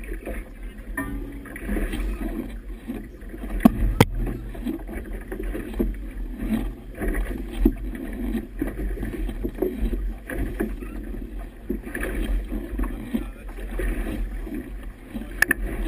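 Wind buffeting the camera microphone and choppy water washing against the hull of a boat under way, with a few sharp knocks about four seconds in and again near the end.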